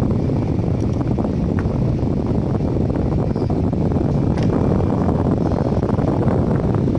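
Steady low rumbling background noise, with a few faint ticks.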